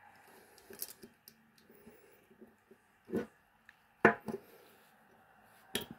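A glass perfume bottle with a metal atomizer top being handled on a paper-covered table: a handful of short, scattered knocks and taps, the loudest about four seconds in.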